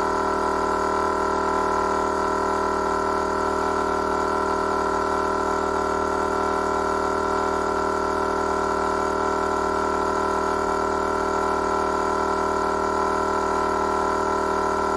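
12-volt BullDog Winch electric air compressor running steadily with an even hum, pumping air back into four tires through a four-way inflation manifold.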